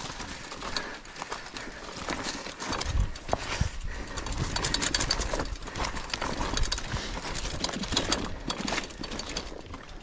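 Mountain bike being pushed by hand over loose rocks and gravel: crunching of tyres and footsteps on stones, with irregular knocks and rattles from the bike.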